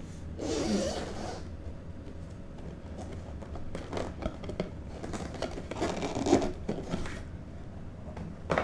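Cardboard packaging scraping and sliding as a box is handled, in several short brushing bursts, with a sharp tap near the end.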